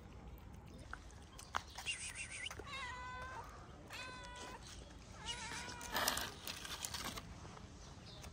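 A cat meowing four times in quick succession, each meow about half a second long and wavering in pitch, starting about two seconds in. A short burst of noise comes about six seconds in.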